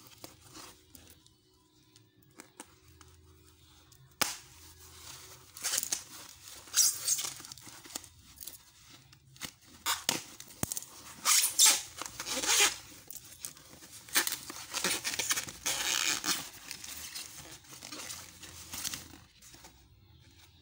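Packaging being torn open and handled by hand: a run of irregular tearing and rustling strokes with scattered clicks. It starts about four seconds in, is loudest around the middle and dies away near the end.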